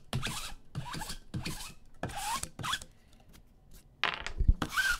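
Sticky lint roller rolled back and forth over a mat, a series of short crackly rasping strokes about two a second, pausing for about a second before two stronger strokes near the end.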